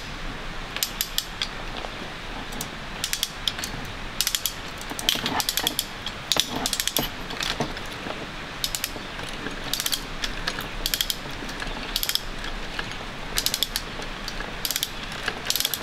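Hand ratchet cable puller (come-along) on a steel zipline cable being worked stroke by stroke, its pawl clicking in short runs of rapid clicks about once a second, as the cable's tension is let off the puller onto the clamps.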